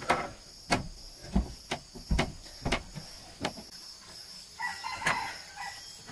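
Footsteps and knocks on wooden floorboards and a bed frame as a person walks in and sits down, with a rooster crowing once, about a second long, near three-quarters of the way through. A steady high insect drone runs underneath.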